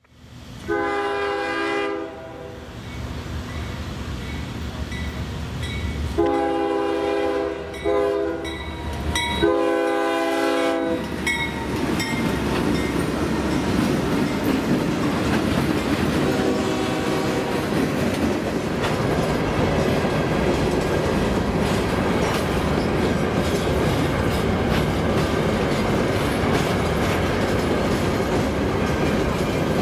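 Train air horn blowing the long, long, short, long crossing signal, then the train passing close by with its wheels clattering over the rail joints. A shorter, fainter horn blast comes partway through the pass.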